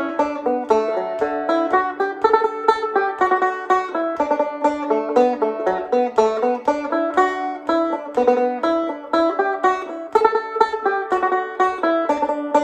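Irish tenor banjo played solo, a reel in D at a brisk tempo: a quick, even run of picked notes with ornaments.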